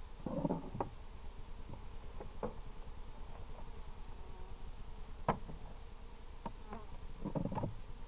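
Honeybees buzzing around an open hive, louder twice, near the start and near the end. A few sharp clicks and knocks sound in between, the loudest about five seconds in.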